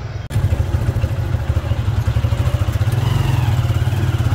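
Motorcycle engine running steadily with a fast, even low putter. It starts abruptly about a quarter second in.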